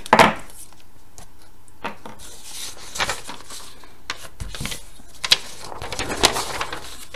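A large sheet of paper rustling as it is picked up, slid and turned over by hand, in several separate swishes, the loudest at the very start.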